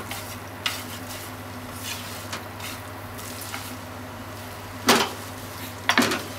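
Noodles and onions sizzling as they are stir-fried in a non-stick frying pan, with light clicks of chopsticks against the pan over a steady low hum. Near the end come two louder knocks as the pan is moved on the stove.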